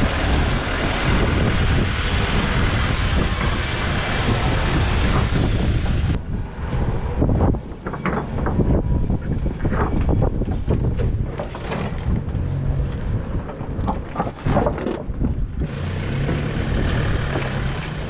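Toyota Hilux towing a camper trailer up a rocky track: the engine runs steadily under load, and many short crunches and knocks from the tyres on loose rock run through the middle of the climb. A dense rushing noise covers the first six seconds and comes back near the end.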